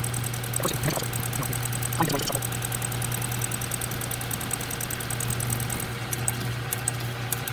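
South Bend 9A lathe running with a milling cutter in its chuck, cutting a brass fitting held in the milling attachment. A steady machine hum with a fast, light ticking on top.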